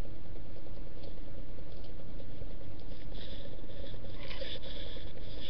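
Webcam being handled and turned around: a steady low rumble of handling noise on its built-in microphone, with a few brief scratchy rubs a few seconds in.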